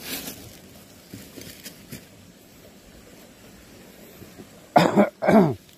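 A man coughs twice near the end, two short, loud coughs about half a second apart.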